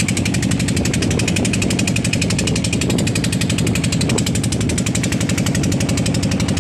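Fishing boat's engine running under way, a steady rapid knocking of about ten to eleven beats a second over a low hum.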